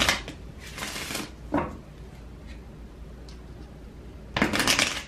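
A deck of oracle cards being shuffled by hand: short bursts of cards sliding against each other, a little after the start and again near the end.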